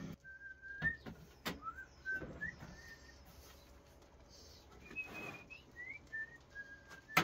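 Soft whistling: a string of short held notes with small upward slides. Under it are a few light knocks of wood set down on the bench, and a sharp click at the very end.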